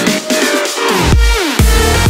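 Electronic dance music track: the bass drops out at the start, falling synth sweeps lead back in, and the heavy beat and bass return about a second and a half in.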